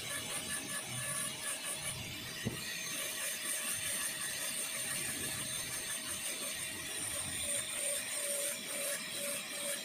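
High-speed dental handpiece with a tapered diamond bur grinding a plastic practice tooth: a steady high whine over rough grinding, as the lingual cusp is cut down during occlusal reduction for a full metal crown.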